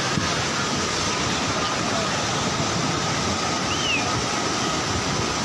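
Loud, steady rushing of a muddy river in flood, an even roar of churning water.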